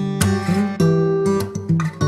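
Background music: a plucked, guitar-like string instrument playing a melody over chords, with a new note or chord every half second or so.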